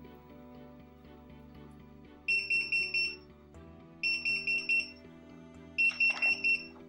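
Door-alarm pager sounding its alert as it receives the door-open signal: three bursts of about four quick high-pitched beeps, starting about two seconds in and repeating roughly every second and a half. A click comes during the last burst, over background music.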